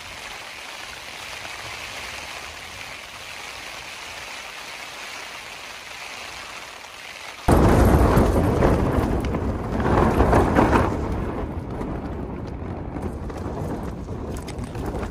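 Rain falling steadily on a tent's fabric, heard from inside the tent. About halfway through, loud storm wind suddenly hits the tent, a deep rushing roar that shakes the fabric and rises and falls in gusts.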